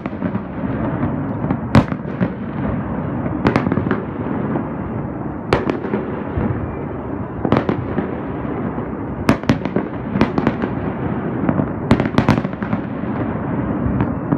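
Fireworks display: sharp bangs every second or two over a continuous rumble and crackle of bursts, the bangs coming thicker in the latter part.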